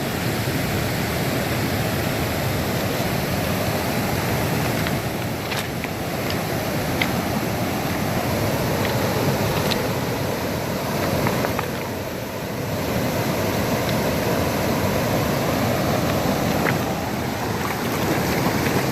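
Steady rushing of flowing river water, with a few faint ticks scattered through it.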